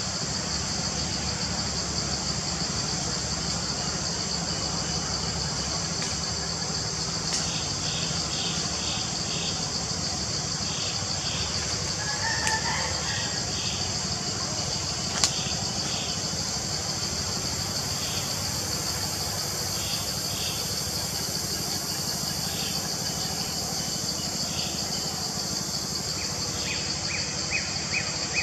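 Forest ambience: a steady high-pitched insect drone over a low hum, with short chirping calls in quick runs of three to five and a brief lower call about twelve seconds in.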